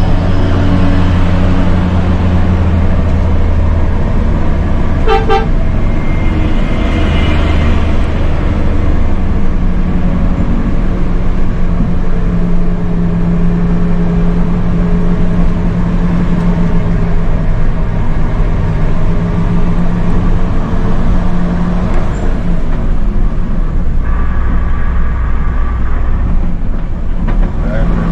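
Diesel engine of an intercity coach running hard under load, its low drone shifting pitch several times as it labours up a steep climb. A short horn toot sounds about five seconds in.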